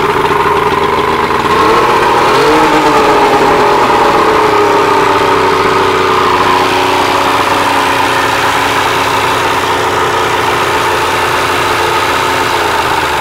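Three-cylinder outboard motor idling steadily, with a brief rise in speed about two seconds in before it settles back. After a carburetor repair it runs evenly on all three cylinders.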